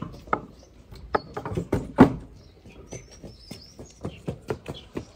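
Small birds chirping, with a scatter of knocks and clicks. The loudest knock, about two seconds in, fits the old wooden door being pushed shut.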